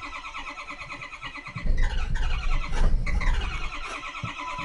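Starter cranking a hard-starting Ford 6.0L Power Stroke V8 diesel in a steady rhythm; about one and a half seconds in the engine begins firing and the sound gets louder and heavier as it tries to catch, but it does not yet run on its own.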